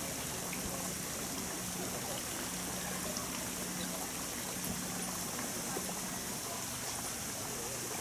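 Steady hiss of water, with a faint low hum that comes and goes during the first few seconds.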